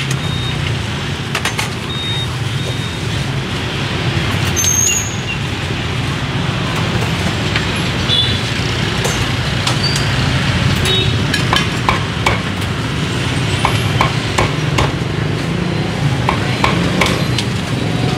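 Steady street traffic noise with motorbike engines running. Scattered sharp knocks come through it, the strokes of a cleaver chopping roast pork.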